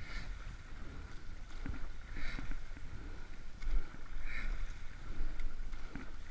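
Rowing eight under way at a steady rate, heard from the cox's seat: about once every two seconds a knock of oars turning in their gates, followed by the rush and splash of the blades. A low wind rumble on the microphone runs underneath.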